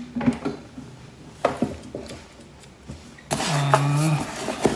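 Scissors cutting the packing tape on a cardboard parcel box, with a sharp click about a second and a half in. The loudest part comes near the end: a man's voice drawn out on one pitch over a rasp of noise.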